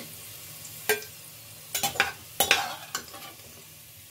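Onions frying in hot oil in a pressure cooker, a steady faint sizzle, as a steel perforated skimmer scoops them out. The skimmer knocks sharply against metal about five times between one and three seconds in.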